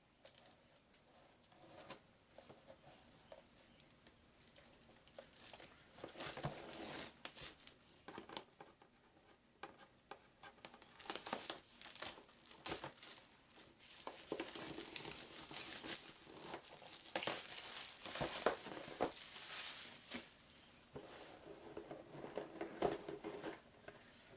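Plastic shrink-wrap being torn off a board game box and crumpled, in irregular crinkling bursts mixed with light clicks and knocks of handling.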